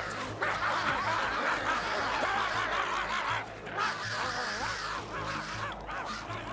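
A pack of cartoon wild dogs yapping and cackling together in many overlapping short calls as they charge, over background music.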